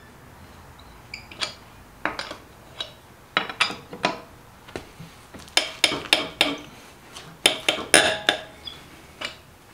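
Steel tire iron clinking against the lug nuts of an alloy car wheel as the nuts are loosened one after another. The sharp metallic clicks come in irregular bunches, with a gap of a second or so between them.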